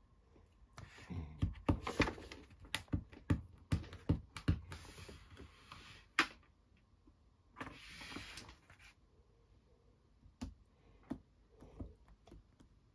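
Small plastic clicks and taps of a diamond painting pen picking resin gems out of a plastic tray and pressing them onto the canvas. There is a quick run of sharp clicks in the first few seconds, two brief scratchy rattles around the middle, then a few scattered taps near the end.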